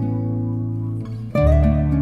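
Background music of plucked acoustic guitar, with a new chord struck about a second and a half in.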